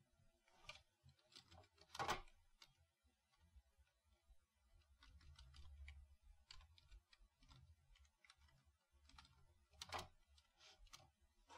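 Faint, scattered keystrokes on a computer keyboard, with two louder clicks about two seconds in and near the end.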